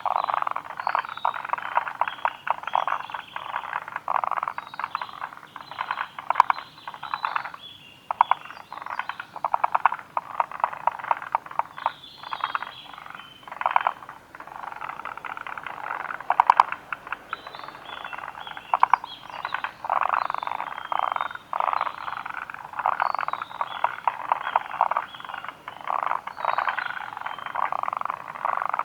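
Forest green tree frogs calling: a near-continuous run of rapid, pulsed croaking calls, one after another with only brief lulls.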